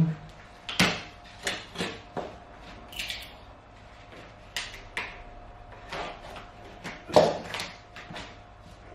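Irregular light knocks and clicks, about a dozen, with the loudest knock about seven seconds in: cork flooring planks and tools being handled and set down during installation.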